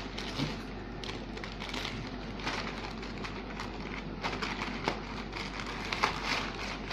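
Rustling, crinkling and small crackles of a parcel's packaging being handled and opened by hand.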